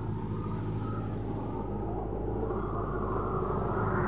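A truck's engine approaching on the road, its steady hum growing louder throughout.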